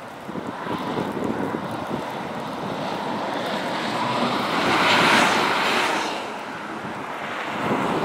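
Traffic on a snow-covered interstate in blizzard wind, with wind buffeting the microphone: a steady rush that swells to its loudest about five seconds in and then fades.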